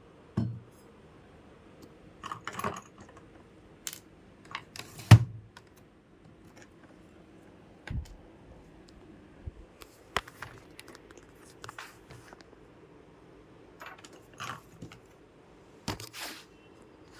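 Scattered small clicks, taps and rustles from handling computer parts, with one sharper knock about five seconds in.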